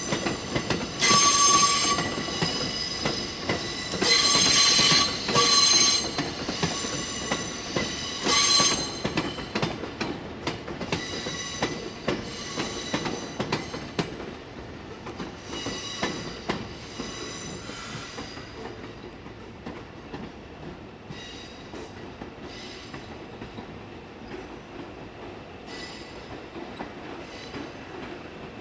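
Steel train wheels squealing in several high-pitched bursts over the first nine seconds as a slow-moving train works through the yard's curves and points, then quieter rolling noise with scattered clicks of wheels over rail joints.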